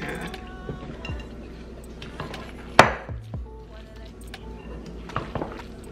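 Wooden spoon knocking and scraping against a glass mixing bowl while stirring moist cornbread stuffing, with one sharp, louder knock a little under halfway through. Soft background music underneath.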